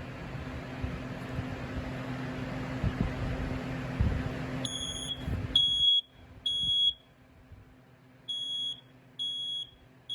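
BRK 4120B hardwired ionization smoke alarm sounding its piezo horn in a temporal-three pattern: three short high-pitched beeps, a pause, then three more. The beeps start about four and a half seconds in, after a low steady hum with a few knocks.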